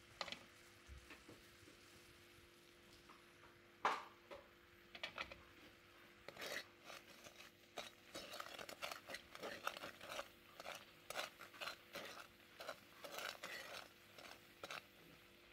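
Wooden spatula stirring and scraping melting sugar syrup in a pan as it caramelizes for peanut brittle. One sharp knock about four seconds in, then a busy, irregular run of scrapes and taps from about six seconds in.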